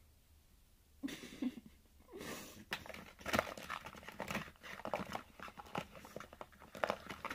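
Two short breathy huffs from a person, then a quick, irregular run of clicks and rustles as makeup containers and packaging are fumbled with by hand.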